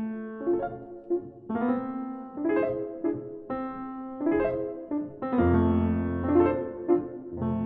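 Grand piano played solo: quick, light runs of short notes and chords. About two-thirds of the way through, a deep bass note is struck and held under the upper notes.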